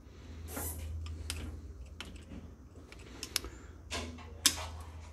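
Small sharp clicks and snips of hand pliers working on the copper cores of a multicore control cable, stripping the insulation: about half a dozen irregular clicks, the sharpest about four and a half seconds in. A low steady hum runs underneath.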